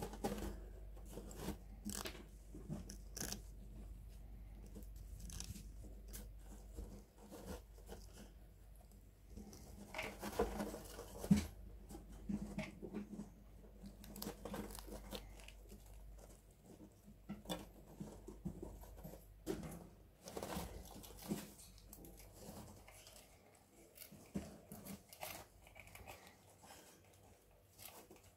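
Pet rat gnawing and chewing a hard, dry piece of food held in its paws, a faint, irregular run of small crunches and nibbles.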